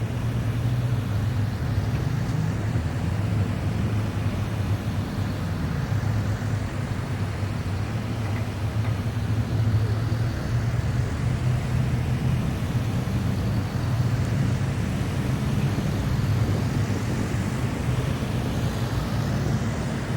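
Steady low engine drone of military vehicles running, over outdoor street noise.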